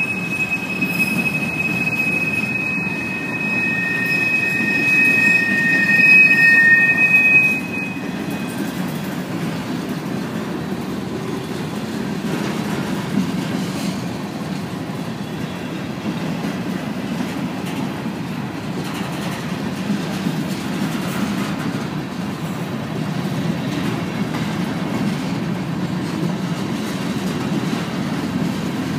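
Norfolk Southern covered hopper cars rolling past with a steady low rumble. For the first seven or eight seconds a high, steady wheel squeal rides over it, loudest just before it cuts off suddenly.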